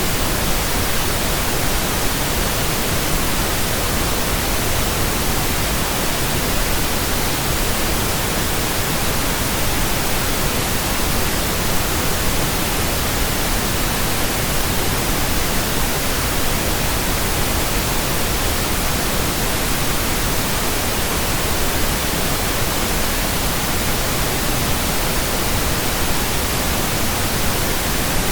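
Steady pink noise: a soft, even hiss like a radio tuned between stations, unchanging in level.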